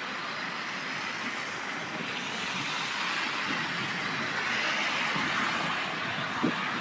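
Steady hiss of road traffic passing close by, swelling in the middle, with one short knock near the end.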